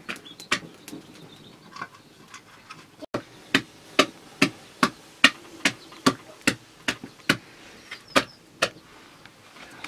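Hand chopping strokes of a curved, sickle-type blade, each a sharp knock: a few scattered strokes, then from about three seconds in a steady run of roughly two to three a second.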